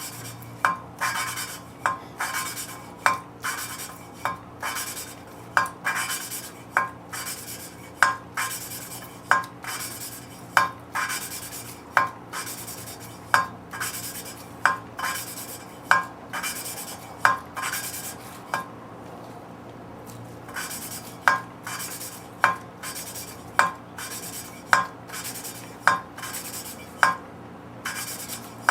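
An engine valve being hand-lapped into its seat in a Ford 302 cylinder head, with lapping compound between the valve face and the seat. Repeated short gritty metal scrapes come about one and a half per second, each with a brief ring, and stop briefly about two-thirds of the way through before starting again.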